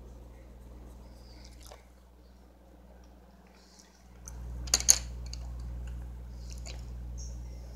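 Handling of a paper colouring book and pencil at a table: faint short scratches, then a brief sharp crackle just after a low steady hum comes in about four seconds in.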